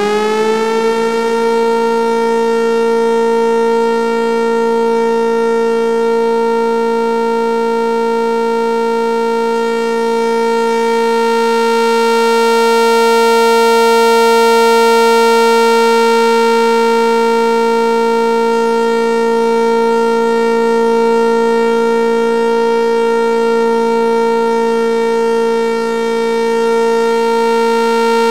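Synthesized civil-defense sirens (Gas Mobil Directo, 4/5 Thunderbolt, SD10 and 500T) sounding together at full speed: a loud, steady wail of several pitches at once. The pitch finishes rising in the first second, then holds level, swelling slightly in the middle.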